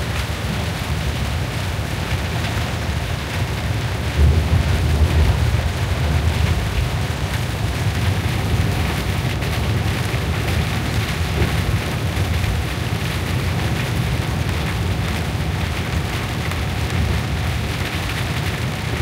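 Rain pattering on the window and body of a moving vehicle, heard from inside, over a steady low rumble of the vehicle on the wet road; the rumble swells briefly about four seconds in.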